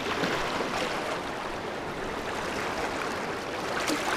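Sea water washing and sloshing against the rocks, a steady rushing noise with a few small splashes.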